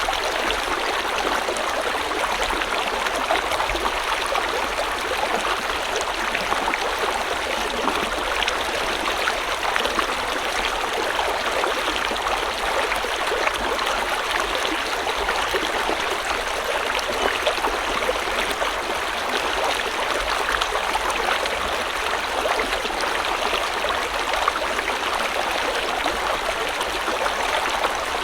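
A river or stream flowing over rocks: a steady rush of water with fine splashing and gurgling, unchanging throughout.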